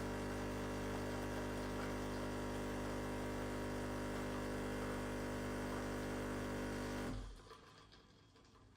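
De'Longhi Dedica Arte espresso machine's vibratory pump buzzing steadily as it pushes water through the coffee for a double shot. It cuts off about seven seconds in, as the shot finishes.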